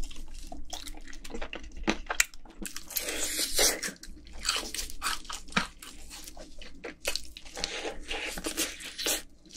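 Close-miked biting and chewing of crispy, sauce-coated Korean yangnyeom fried chicken: irregular wet crunches and crackles throughout.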